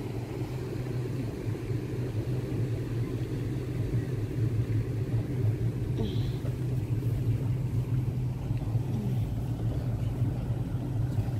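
Motorboat engine running steadily under way, heard from aboard as a low drone with rumble, getting a little louder a few seconds in.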